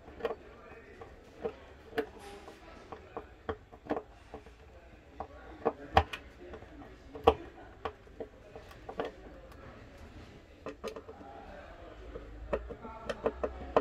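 A screwdriver turning a screw in a light fitting's small metal mounting bracket, with the tool and parts clicking and knocking on a wooden tabletop. The clicks come at irregular moments; the loudest fall about six and seven seconds in.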